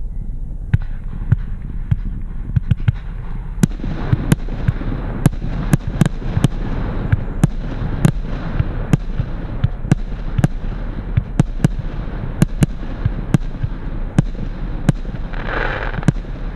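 Wolff 'Massive Reload' category F2 fireworks battery firing: a fast, irregular string of sharp bangs, about two to three a second, starting under a second in, over steady background noise.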